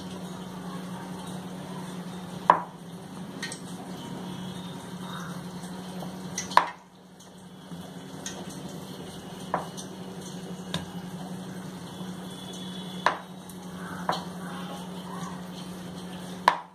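Wooden rolling pin rolling out dough on a round rolling board, with the soft rubbing of the dough and about six sharp knocks as the pin or board strikes, a few seconds apart. A steady low hum runs underneath.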